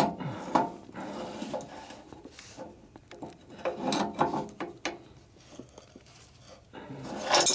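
Wrench working a jack bolt on a lathe's levelling foot, turned to raise one corner of the lathe: irregular metal scraping and clinking of the wrench on the bolt, busiest about a second in, around the middle and near the end.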